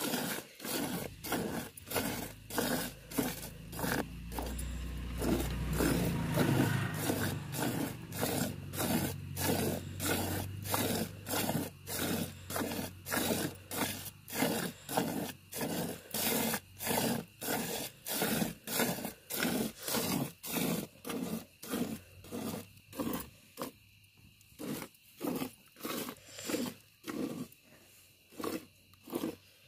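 A cow being milked by hand: regular squirts of milk hitting the pail, about two a second. A low rumble swells underneath from about four seconds in and fades out by about twelve seconds.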